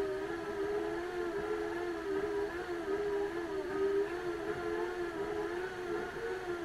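Homemade hand-crank generator whining steadily as it is cranked: a DC motor run as a generator through toothed timing belts and pulleys, loaded by charging a cell phone. The pitch wavers slightly with the speed of the hand cranking.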